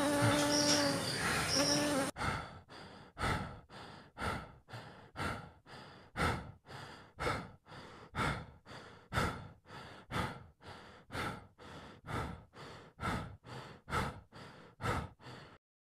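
A blue-banded bee buzzing in flight, steady in pitch, cut off about two seconds in. After it comes an even rhythm of short breathy swishes, about two a second, alternating stronger and weaker, which stops suddenly shortly before the end.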